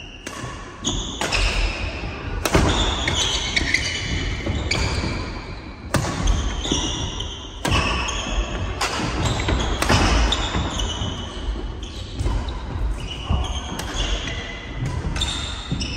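Badminton doubles rally on a wooden court: sharp racket strikes on the shuttlecock every second or so, with thudding footsteps and short high squeaks of shoes on the floor, echoing in a large hall.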